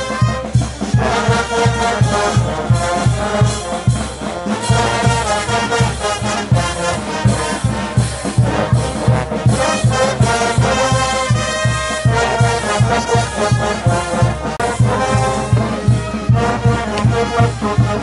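A band playing carnaval jaujino music: wind instruments carrying the melody over a steady drum beat of about two strokes a second.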